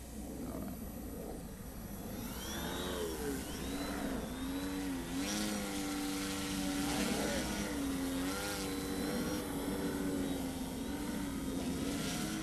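Foam Big Nasty RC aerobatic plane flying close, its E-flite Power 480 brushless electric motor spinning a 12x6 APC propeller: a steady propeller tone with a higher motor whine, its pitch rising and falling as the plane passes and the throttle changes. It grows louder about two seconds in.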